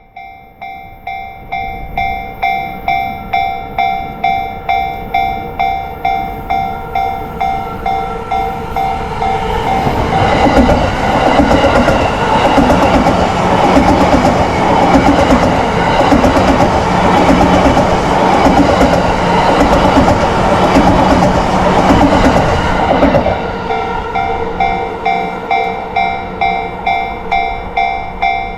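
Japanese level-crossing warning bell dinging rapidly and steadily. About ten seconds in, a Yamanote Line electric train rushes over the crossing, loud, with its wheels clattering rhythmically over the rails, and is gone after about thirteen seconds. The bell keeps dinging after the train has passed.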